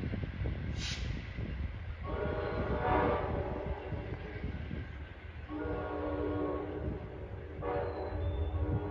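Amtrak Downeaster passenger train's air horn sounding as the train pulls away: two long blasts of about two seconds each, then a third starting near the end and held on. A steady low rumble from the train runs underneath.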